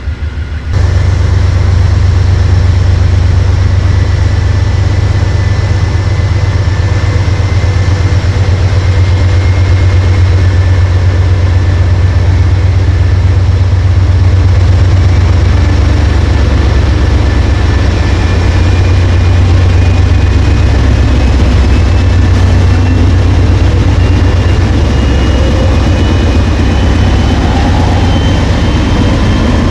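Train crossing a bridge: a steady, heavy low rumble of locomotive engine and rolling train, with a faint thin whine slowly rising in pitch in the second half.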